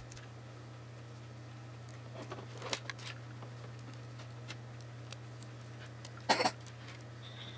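Kapton tape being handled at a workbench: a few light crackles and clicks, then one brief, louder crackle near the end, over a steady low hum.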